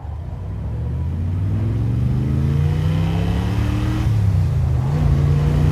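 Car engine and road noise heard from inside the cabin as the car accelerates, the engine note rising steadily and dipping briefly about four seconds in.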